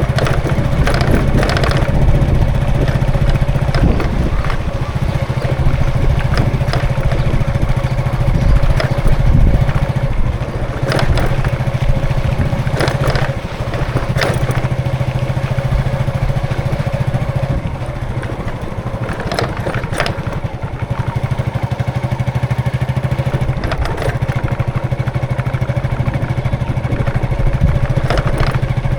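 Street traffic dominated by a nearby engine running at a steady idle-like hum, with scattered short clatters and knocks from passing vehicles.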